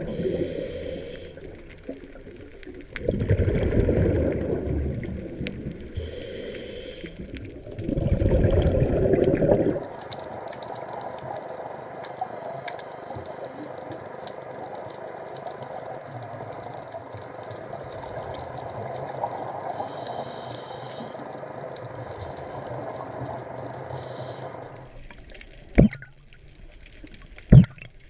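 Scuba diver's breathing heard underwater: three loud bursts of exhaled bubbles rushing out of the regulator, one every four to five seconds. These give way to a steady, fainter underwater hiss, broken near the end by two sharp clicks.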